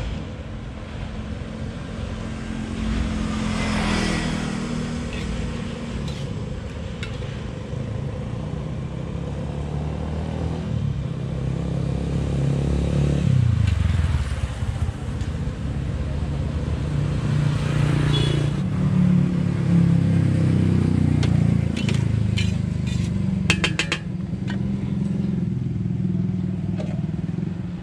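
Motorcycles and cars passing on the road, their engine sound swelling and fading, with the scrape and clink of a metal spatula in a large steel wok of frying noodles. A quick run of metal clinks comes a little before the end.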